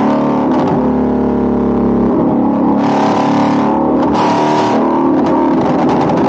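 Shelby GT350's 5.2-litre flat-plane-crank V8 running loud through long-tube headers with the resonators deleted, held at raised revs that shift a few times. There are two short raspy bursts about three and four seconds in.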